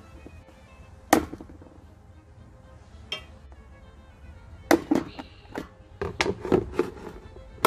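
Hand snips cutting the handles off a plastic bucket: a sharp snap about a second in, then a quick run of clicks and knocks against the bucket in the second half.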